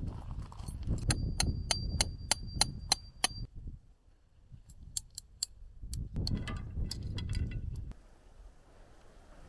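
A run of sharp, evenly spaced metallic clicks, about four a second, lasting about two seconds over low rumbling handling noise. A second, looser stretch of clicks and rumble comes later.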